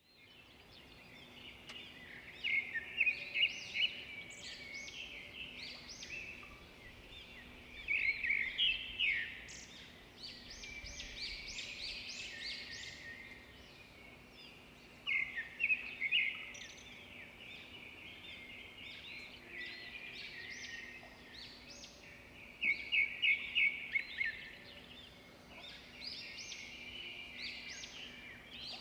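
Birds chirping and singing, with repeated bursts of rapid high trills, over a faint steady hum.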